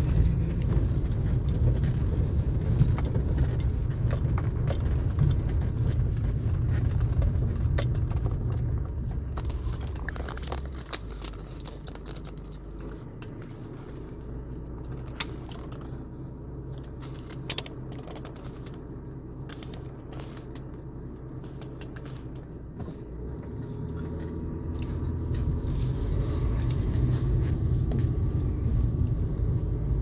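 Inside a car driving over a rough, unpaved dirt road: a low rumble from the tyres and body, with rattling and clicking from loose things in the cabin. The rumble eases off for about the middle third, where a few sharp ticks stand out, then builds up again near the end.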